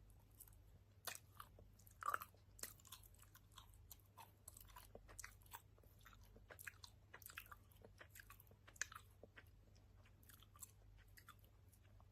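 Open-mouthed chewing of soft sour gummy candy: faint, wet lip smacks and mouth clicks, with a louder smack about two seconds in and another near nine seconds.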